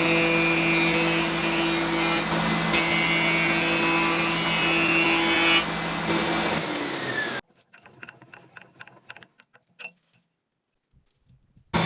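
An electric woodworking machine runs with a steady hum, then stops abruptly about seven seconds in. A few faint knocks follow, then near silence.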